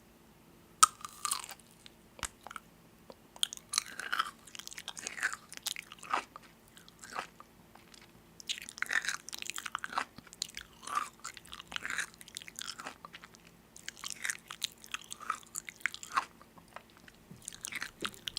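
Close-up biting and chewing of crunchy food: groups of crackly crunches lasting a few seconds each, with short pauses between bites.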